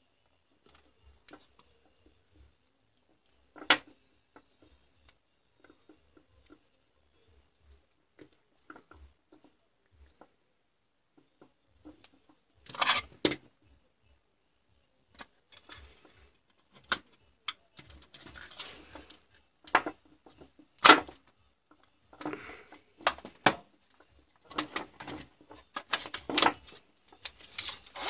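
Scattered clicks and clatter of plastic cordless-drill battery parts and lithium-ion cells being handled and fitted together, with a few sharp snaps; the loudest comes about 21 seconds in, and the handling grows busier in the second half.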